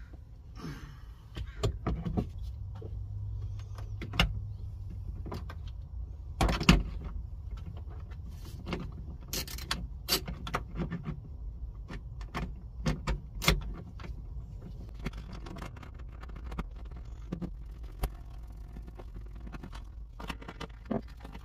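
Irregular clicks and metallic clinks of a ratchet and seat-belt anchor hardware as the seat belt's upper anchor bolt is worked, with knocks against the plastic interior trim. A steady low hum runs underneath.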